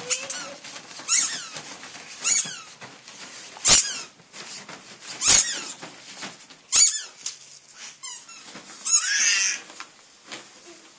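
Excited dog whining in a string of short, high-pitched squeals that fall in pitch, one every second or so, with a longer run of squealing about nine seconds in; a few sharp knocks come with some of them.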